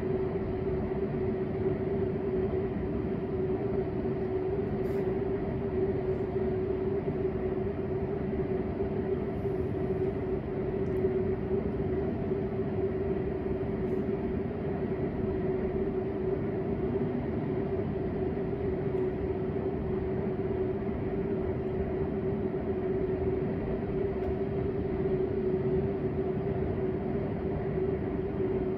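A steady machine hum, one constant tone over an even rushing noise, that does not change in pitch or level.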